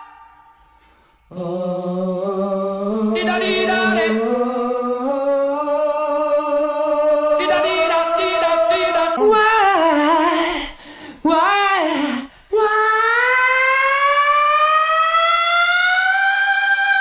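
Wordless male singing, a single voice without instruments. It starts about a second in with held notes that slide upward, moves into wavering, swooping notes broken by short gaps, and near the end holds one long note that glides slowly higher.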